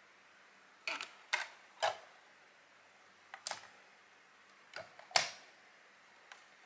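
A series of sharp plastic clicks and snaps, about seven, from a CD jewel case and the lid of a Sony D-50 portable CD player being handled while a disc is loaded. The loudest snap comes about five seconds in.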